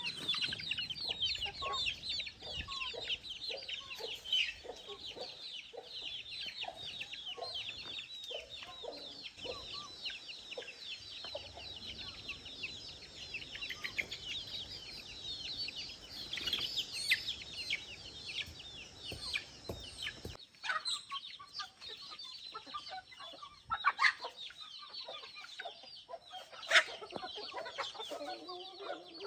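Backyard chickens clucking, under a dense, rapid high-pitched chirping that runs for the first twenty seconds or so. About two-thirds of the way through the chirping thins out, and two sharp knocks stand out near the end.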